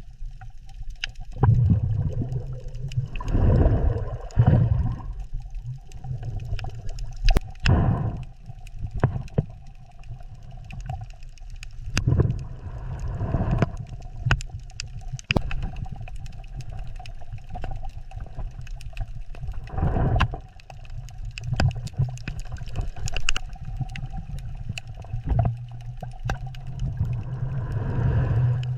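Underwater ambience of a scuba diver breathing, with several gurgling rushes of breath and bubbles over a steady low rumble and scattered crackling clicks.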